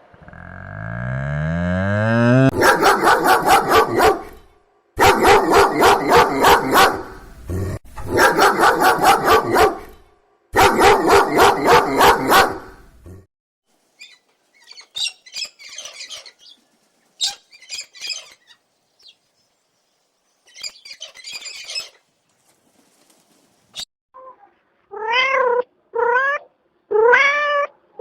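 Animal calls. Bouts of a loud, rapidly pulsing call fill the first half, faint scattered sounds follow, and near the end a cat meows in a string of short rising-and-falling meows, about one a second.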